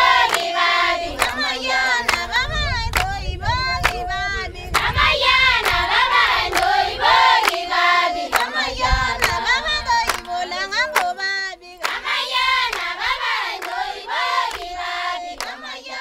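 A group of women singing together in chorus, with steady rhythmic hand clapping.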